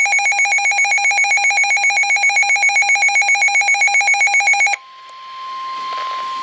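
Emergency weather alert alarm: a loud, rapidly pulsing electronic beep that cuts off sharply about three-quarters of the way through. A steady single-pitch warning tone over radio hiss then starts. Both signal that a severe thunderstorm warning is about to be broadcast.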